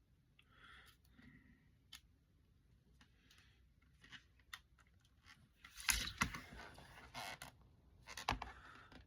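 Handling a CD and its plastic packaging: scattered small clicks, then louder crackling and rustling of plastic from about six seconds in.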